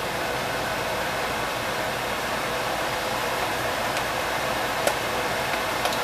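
A steady hiss runs throughout, with a few faint clicks in the last two seconds.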